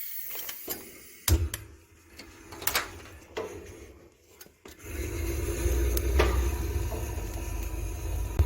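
Metal clicks and knocks from the vents and door of a wood-burning stove being handled, followed about five seconds in by a steady low rumble.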